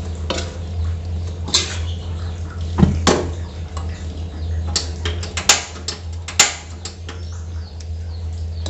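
Metal spoon stirring greens and grated coconut in a steel wok, scraping and clinking against the pan in irregular strokes, the sharpest knocks around the middle, over a steady low hum.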